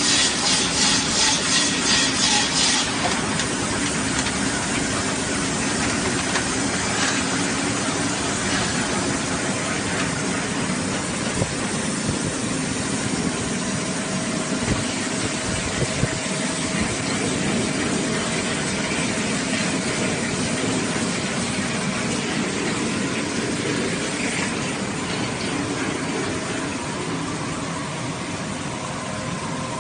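3-in-1 water bottle rinsing, filling and capping machine running: a steady mechanical whir with hiss, a regular pulsing about twice a second for the first few seconds, and a few sharp clicks around the middle.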